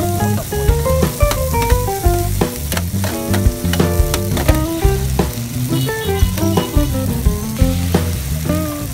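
Fried rice sizzling in a large wok while a metal spatula stirs it and clanks against the pan, with a melody of background music playing along.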